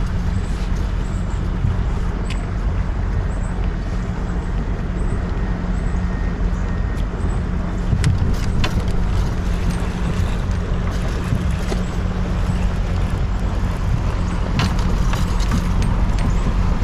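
A steady low motor hum with no breaks, with occasional faint sharp clicks over it.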